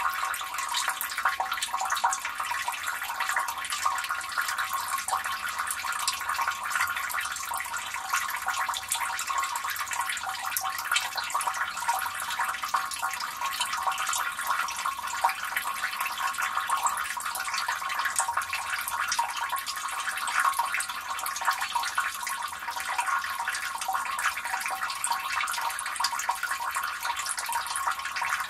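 Water running and splashing into a street gully drain, a steady trickling, dripping stream falling into the drain.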